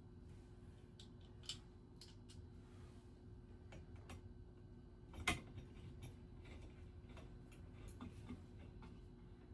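Scattered light clicks and taps of ceiling-fan hardware being handled and fitted, with one louder click about five seconds in, over a faint steady hum.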